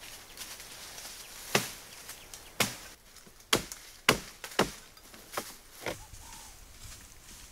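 About seven sharp chopping knocks on wood, spaced unevenly, over a faint outdoor background.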